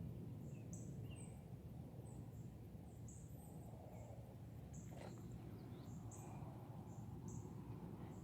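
Faint outdoor ambience: short high chirps repeating about twice a second over a steady low rumble, with one faint click about five seconds in.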